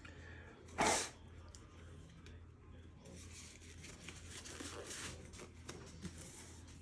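Gloves being pulled onto the hands: faint rustling and crinkling, with one short, sharp rustle about a second in.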